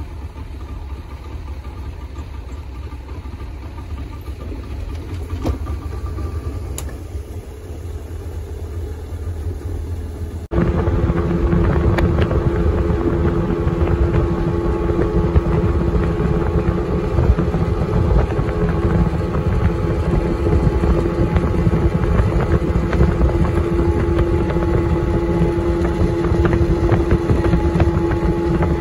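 Small speedboat's engine: a low rumble at first, then, after a sudden jump in loudness about ten seconds in, running at speed with a steady drone over the rush of water and wind.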